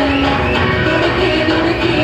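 A woman singing into a microphone over loud instrumental backing music, holding long, gliding notes.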